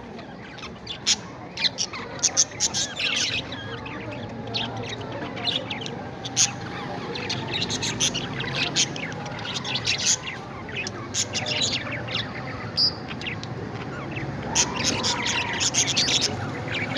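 Parrots calling: a busy run of many short chirps in quick succession, with now and then a short gliding whistle.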